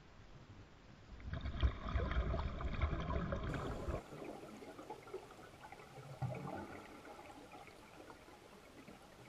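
Water bubbling and trickling, louder and fuller from about one second in until about four seconds in, then a quieter crackling trickle.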